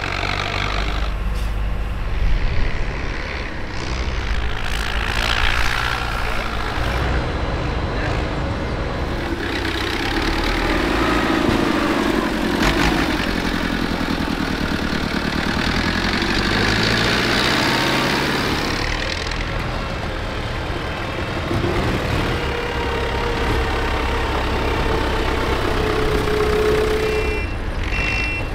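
Diesel tractor engine running under load, its pitch rising and falling as the front loader works. Near the end a truck's reversing beeper starts, sounding in short repeated beeps.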